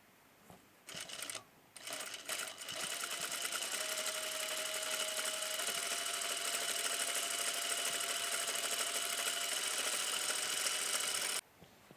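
Sewing machine stitching through fabric: a short burst about a second in, then a steady run at an even pace that stops abruptly near the end.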